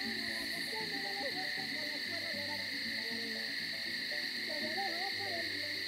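Night ambience of open grassland: a steady, high insect-like drone under many short, overlapping warbling animal calls, like a chorus of frogs and night creatures.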